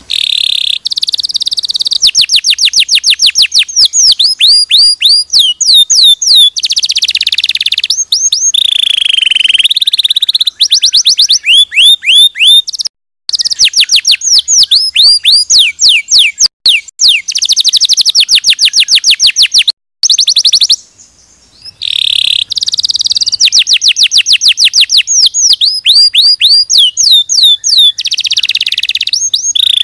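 Domestic canary singing a long, loud song of fast trills and rolls of repeated high notes, broken by a short pause about two-thirds of the way through.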